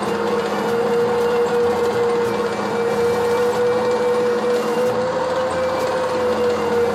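Simulated Centurion tank engine sound from a Benedini model-tank sound card playing through small speakers, running steadily while the main drive motors are tested. A steady whine runs through it, rising slightly in pitch and holding.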